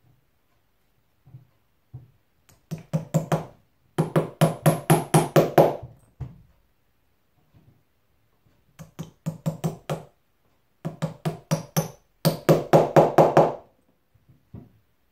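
Upholstery hammer with a hard nylon face tapping decorative upholstery nails home, in five quick runs of light, slightly ringing taps, about five a second, with short pauses between runs.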